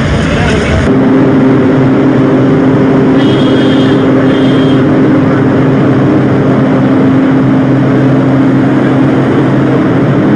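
Steady, loud machine hum with a low droning pitch. Two short high tones sound about three and four and a half seconds in.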